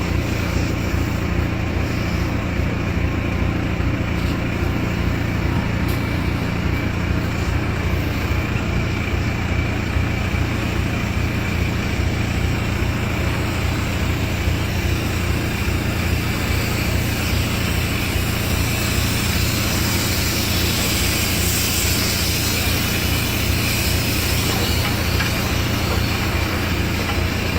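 A machine running steadily with a deep hum under a rushing hiss; the hiss grows brighter a little past halfway.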